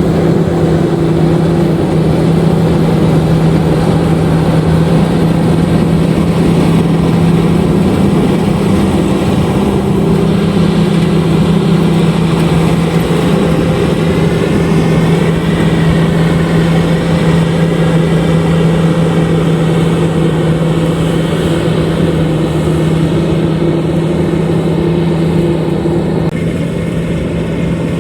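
LOVOL RG130EVO combine harvester running steadily under load: a constant engine drone with machinery whine over it. The higher whine wavers up and down about halfway through, and the sound thins a little shortly before the end.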